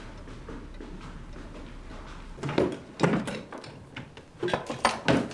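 Quiet room tone, then from about two and a half seconds in a run of knocks, thuds and clatter as furniture and drawers are handled and shifted during a rough room search.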